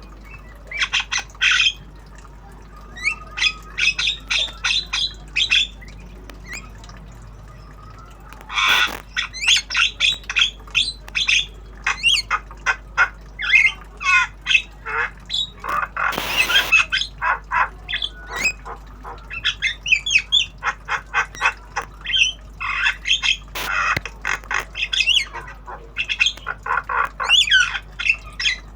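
Javan myna calling in quick runs of short chirps and whistles, broken by a few harsh squawks, with a pause of about two seconds around a quarter of the way in.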